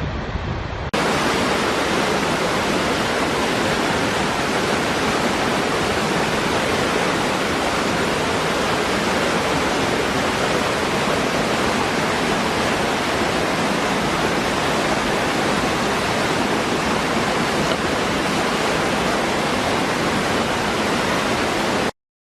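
Waterfall: a steady, dense rush of falling water that cuts in sharply about a second in and stops abruptly near the end. Wind noise on the microphone is heard before it cuts in.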